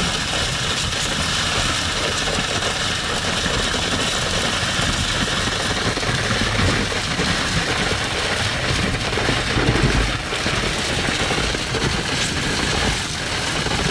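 Concrete pump truck's diesel engine running steadily as the boom pump works, a continuous mechanical drone.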